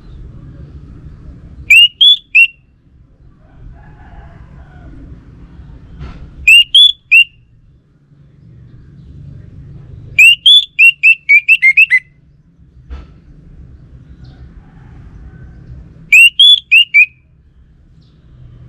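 Orange-headed thrush singing in four short bursts of quick, loud whistled notes a few seconds apart. The third burst is longer than the others.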